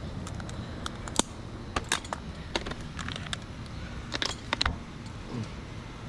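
Scattered light metallic clicks and clinks of climbing and rigging hardware being handled, a small cluster near the middle and another near the end, over a low steady rumble.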